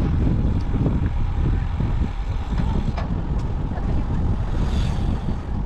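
Wind rumbling on an action camera's microphone during a bicycle ride: a loud, unsteady low rumble with no distinct events.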